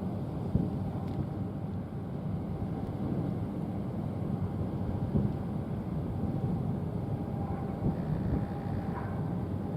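Wind buffeting the microphone over a steady low rumble, with a faint steady tone in the second half.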